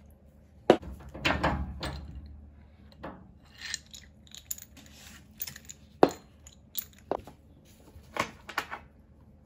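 Sharp metallic clinks and knocks at irregular intervals from a spanner and chrome-plated compression fittings being handled on 10 mm copper radiator pipe. The loudest strikes come just under a second in and about six seconds in.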